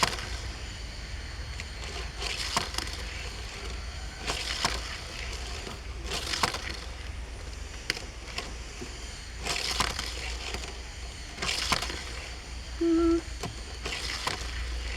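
A small die-cast Fiat 500 toy car runs along a plastic toy track: about six short rattling rolls, each lasting about half a second, come roughly every two seconds, with sharp clicks in between.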